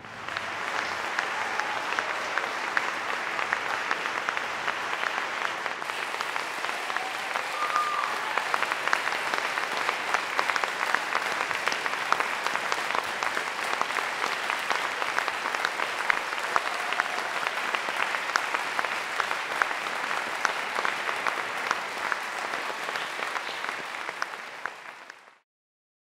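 Audience applauding steadily, a dense patter of many hands clapping that fades out near the end.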